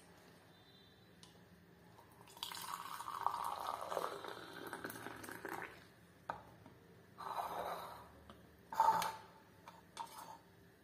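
Tea poured from a steel saucepan through a plastic strainer into steel cups. A long pour starts about two seconds in, a shorter one follows, and there is a sharp metal clink near the end.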